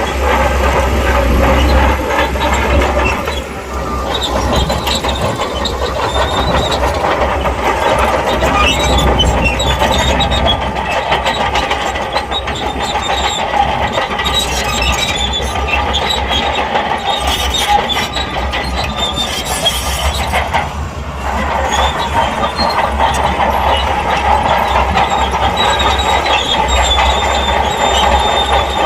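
Shantui crawler bulldozer working: its diesel engine runs steadily while the steel tracks clank and squeal.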